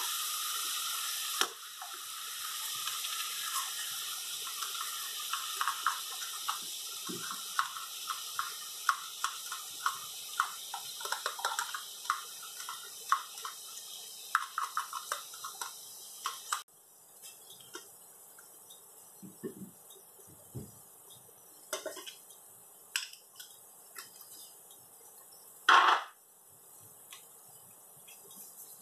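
Onions and tomatoes simmering in water in a stainless steel pot: a steady hiss with many rapid small pops that stops abruptly a little past halfway. After that it is quieter, with scattered light knocks of utensils on the pot and one louder clatter, about half a second long, near the end.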